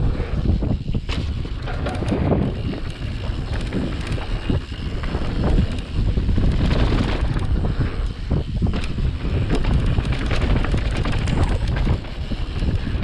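Wind buffeting a fast-moving camera's microphone, with a rough, uneven rumble underneath and no engine note.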